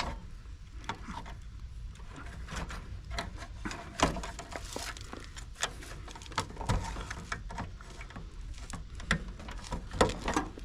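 Scattered small clicks and light knocks of wire spade connectors being handled and pushed onto terminals while a heat pump's defrost control board is rewired, with a few sharper clicks along the way.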